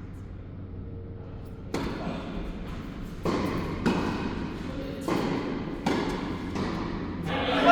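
Tennis ball struck by rackets and bouncing on an indoor court during a rally: five sharp hits in about four seconds, each followed by a short echo of the hall.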